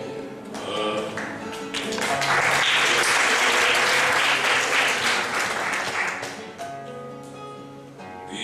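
Classical guitar playing, with audience applause breaking in about two seconds in and lasting around four seconds over the guitar, which then carries on alone.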